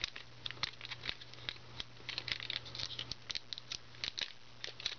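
Anti-static plastic bags crinkling and crackling in quick irregular ticks as they are handled and picked apart at the tape holding them together.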